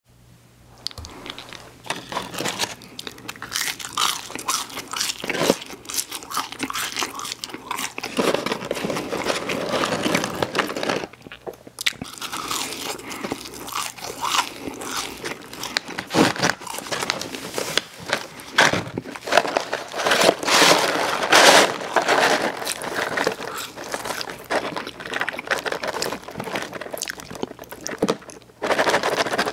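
Close-miked eating sounds of fast food: crunchy bites and chewing, one after another without pause.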